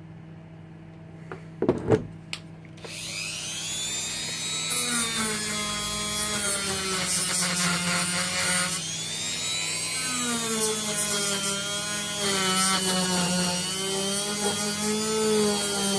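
A few knocks, then a rotary tool starts about three seconds in with a quickly rising whine and runs, its pitch wavering. From about five seconds its bit grinds against the metal terminals of 18650 lithium-ion cells, in two long passes with a short break. This cleans the contacts so that solder takes to them.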